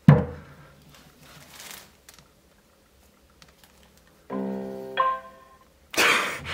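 A Tribit StormBox Pro Bluetooth speaker is set down on a wooden table with a thud. About four seconds in it plays its two-part power-on chime, a short tone followed by a higher one. Near the end there is a brief rustle of handling.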